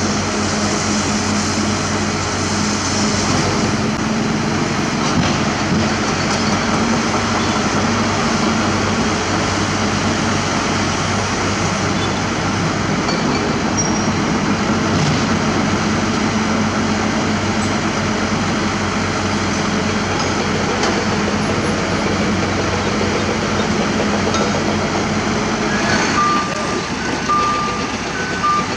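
Heavy diesel engine of a UD Trucks Quester self-loader truck running steadily at the loading site. Near the end, a few short, high, repeated beeps typical of a reversing alarm.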